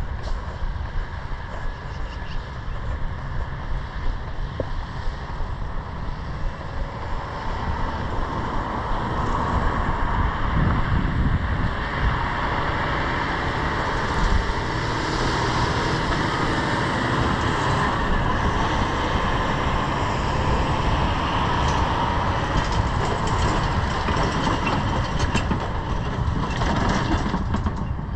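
Steady motor-vehicle noise, growing louder about ten seconds in and then holding.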